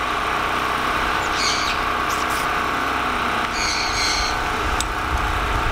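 Two short, high bird calls from sun conures, one about a second and a half in and a flat half-second call about four seconds in, over a steady outdoor background rush.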